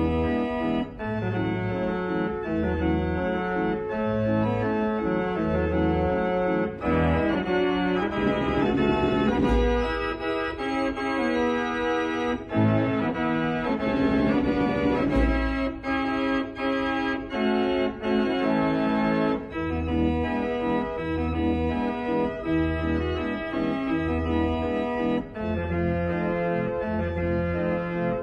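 Background organ music: a keyboard tune held in chords over a bass line of notes about a second apart.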